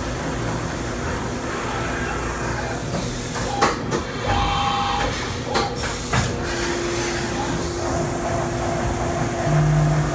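A CNC vertical milling machine cutting a metal block under flood coolant: steady machining noise with the hiss of coolant spray. There are several sharp clicks about halfway through, and after them a steady tone.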